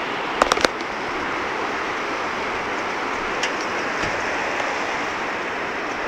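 Steady, even rushing outdoor noise, like wind or distant running water, with a quick cluster of sharp clicks about half a second in and another single click a few seconds later.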